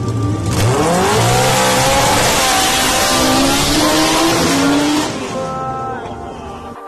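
Modified drag-racing lawn tractor engines launching at full throttle. The sound comes in loud about half a second in, with the engine pitch climbing in several rising sweeps, then fades from about five seconds in as the mowers run away down the strip.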